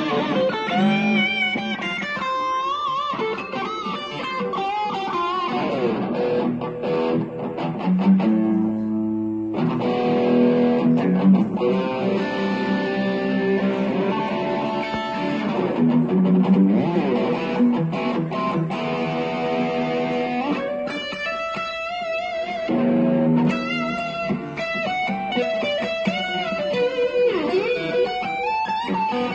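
Strat-style electric guitar played through a small practice amp with a broken-up, overdriven tone. It plays lead lines with string bends and vibrato, a held low chord about nine seconds in, and quick runs in the last third.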